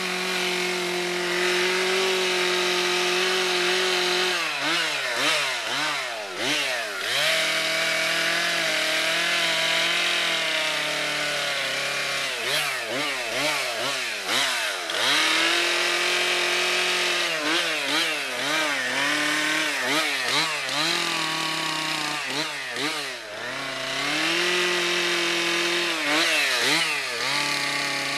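Stihl two-stroke chainsaw carving into a wooden stump. It is held at high revs for stretches, broken several times by runs of quick throttle blips in which the engine speed drops and climbs back about twice a second.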